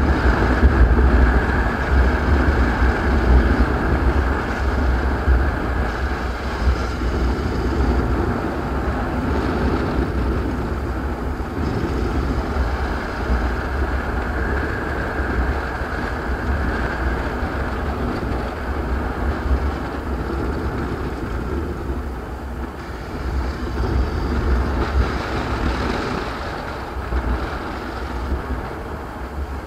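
Kawasaki Versys 650's parallel-twin engine running at road speed, with a low rumble mixed with wind and tyre noise; it gets quieter near the end as the bike slows.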